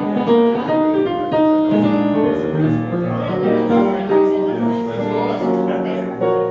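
Digital piano being played: a melody over held chords that keeps going without a break.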